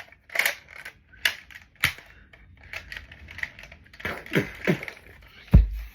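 Plastic Nerf toy blasters clattering and clicking as they are picked up and handled, in an irregular run of sharp knocks with a heavier thump near the end.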